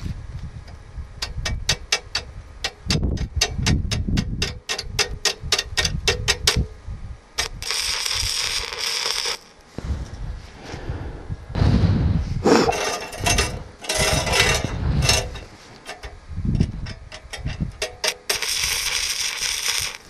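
Stick (shielded metal arc) welding with a SUZUKID IMAX80 inverter welder: a fast run of sharp crackling clicks as the electrode strikes the arc, then the arc crackling and sizzling in three spells of a few seconds each, starting about eight, twelve and eighteen seconds in.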